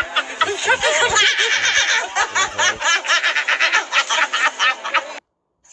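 A man and a woman laughing hard together in quick, choppy pulses while sitting on a vibration plate. The sound cuts off abruptly near the end.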